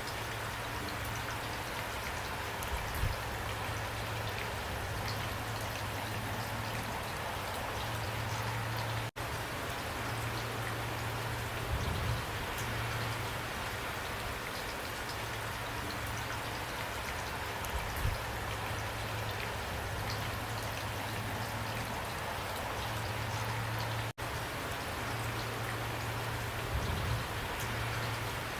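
Steady rain falling, an even patter of drops with a few soft low thumps spread through it. The sound cuts out for an instant twice.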